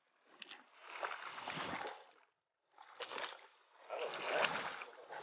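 Water sloshing against the side of a small boat in three swelling surges, with a few faint clicks.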